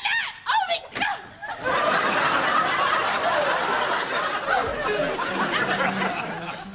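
Laughter: a single voice laughs without words in the first second and a half, then several people break into sustained laughter together, fading near the end.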